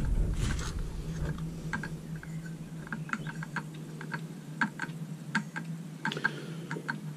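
Irregular light clicks and taps from handling a circular saw and its blade, over a faint steady hum.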